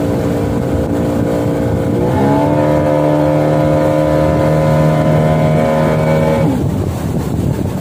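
Small boat's outboard motor running under way, with wind and water noise. Its pitch steps up about two seconds in, holds steady, then falls away sharply about six and a half seconds in as the engine is throttled back.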